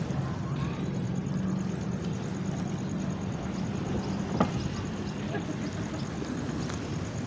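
Small wooden fishing boat's engine running with a steady low hum that eases a little after about four seconds, with wind noise over it. A single sharp knock sounds about four seconds in.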